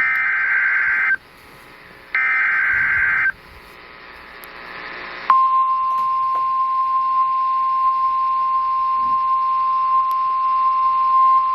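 NOAA Weather Radio EAS alert. Two buzzy digital data bursts of the SAME header, each about a second long, with faint radio hiss between them. About five seconds in, the steady 1050 Hz weather radio warning alarm tone begins and holds.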